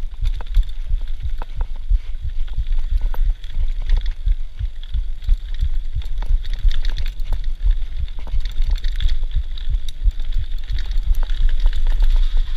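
Mountain bike riding fast down a rough, stony dirt track, heard from a rider-mounted camera: rapid, irregular low thumps and knocks as the bike and camera jolt over rocks, with rattling clicks and a steady high hiss.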